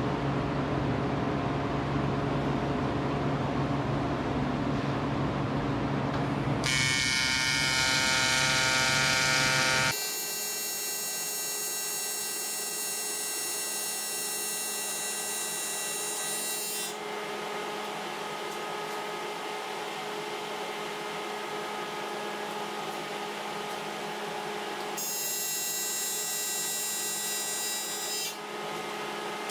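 A low steady hum for the first few seconds, then the buzz of an arc welding aluminium, in stretches whose tone changes abruptly every few seconds.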